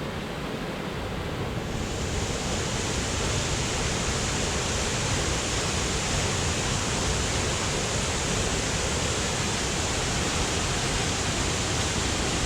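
Large river waterfall rushing: a steady, full wash of falling water that turns brighter and a little louder about two seconds in.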